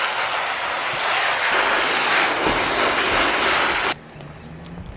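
Garden hose spraying water onto a cotton shirt to wet it, a steady hiss that cuts off sharply about four seconds in.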